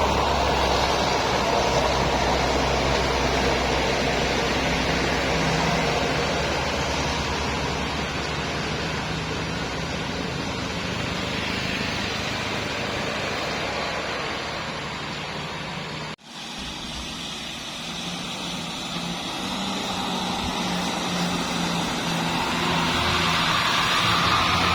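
Road traffic: vehicle engines running as they pass, a steady mix of low engine hum and road noise, broken once by a sudden brief dropout about two-thirds of the way through.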